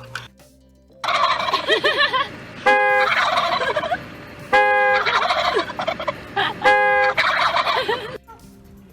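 Parrot giving about seven seconds of rapid, warbling chatter, broken by three short, loud, even-pitched calls about two seconds apart.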